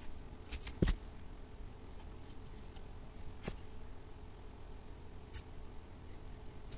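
Faint handling clicks and taps as a strip of double-sided tape is cut from the roll with a knife and pressed onto a lens's beauty ring. A quick cluster of clicks ends in a knock with a dull thud under a second in, and two more single clicks follow a couple of seconds apart.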